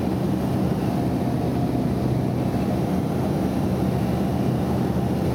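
Steady drone of a light airplane in flight, heard inside the cockpit: a constant low engine hum over a rushing noise.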